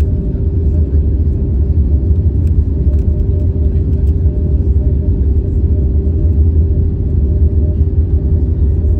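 Cabin noise of an Airbus A320-family airliner on its landing roll, ground spoilers deployed: a loud, steady low rumble from the wheels on the runway and the engines, with a steady hum above it.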